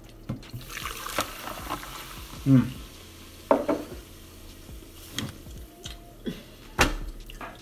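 Close-up mukbang eating sounds: bread dipped in melted cheese fondue and bitten, with wet chewing and mouth clicks. Two short hums of 'mm' come about two and a half and three and a half seconds in.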